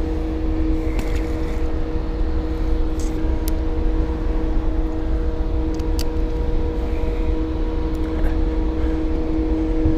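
A boat motor running steadily: a constant hum with two steady tones over a low rumble, and a few faint clicks.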